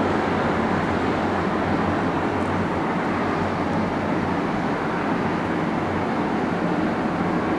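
Steady, unbroken rumble and roar of airport jet traffic heard at a distance.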